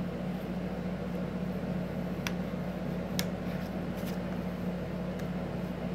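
Steady low hum of room tone, with three faint light clicks from a metal ruler and a plastic ring binder being handled.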